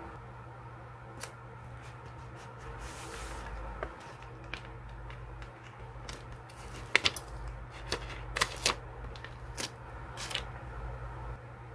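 A sticker being peeled from its backing paper with metal tweezers: a string of small crackles of paper and plastic film and tweezer clicks, thickest in the second half. A faint steady hum runs underneath.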